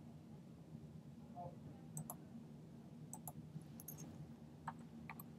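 Faint, scattered clicks of a computer mouse and keyboard keys over a low, steady hum.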